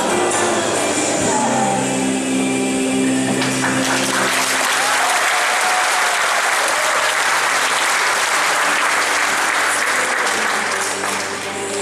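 Group singing with held notes, then audience applause breaks out about four seconds in and continues over the music before easing off near the end.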